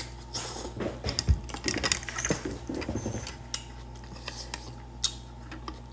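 Udon noodles being slurped, with a spoon and chopsticks clicking against the soup bowl; the clicks thin out after about three seconds.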